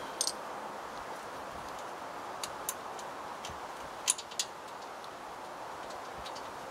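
Scattered light clicks and taps of parts being handled and fitted by hand in a car's engine bay, in small groups, the loudest about four seconds in, over a steady low hiss.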